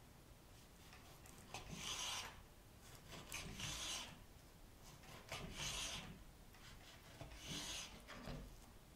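A kitchen knife slicing through raw skin-on chicken on a wooden cutting board: four drawn cuts about two seconds apart, each a short rasping scrape of the blade through the skin and across the wood, with a smaller cut near the end.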